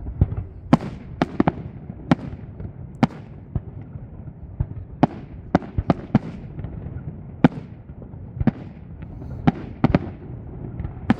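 Fireworks display: a rapid, irregular string of sharp bangs, about two a second, from shells bursting, over a steady low background rumble.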